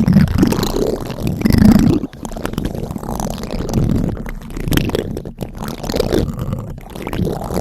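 Spoon scraping directly across a microphone in repeated strokes, each a low, rumbling scratch, the two strongest near the start.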